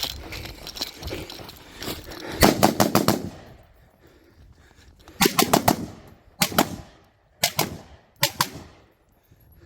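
Competition gunfire: quick strings of shots, a fast run of about five, then another run of about five a couple of seconds later, followed by three short groups of two or three shots.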